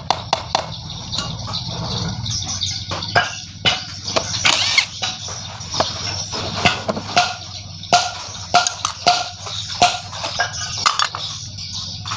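Irregular sharp clinks and knocks of tools striking and working metal parts of a Yamaha 100 motorcycle engine being dismantled.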